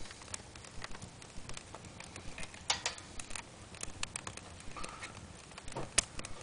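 Wood fire crackling in a fireplace as kindling and paper catch under a log: irregular sharp pops and snaps, with one louder pop near the end.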